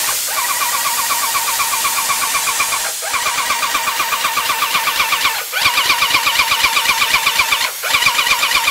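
SprayTech EP2105 airless paint sprayer's electric piston pump running, a rapid, even pulsing beat. The sound drops out briefly three times, each dip followed by a quick pick-up.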